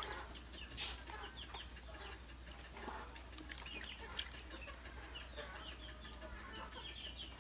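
Faint background calls of chickens and small birds, many short high chirps, with a few soft knife taps as a cleaver slices bilimbi (kamias) fruit.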